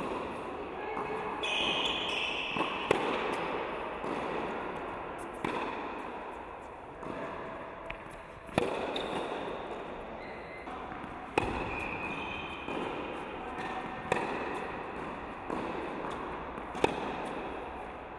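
Tennis ball struck by racket in a groundstroke rally: a sharp pock every two to three seconds, with fainter ball bounces between hits, echoing in an indoor tennis hall.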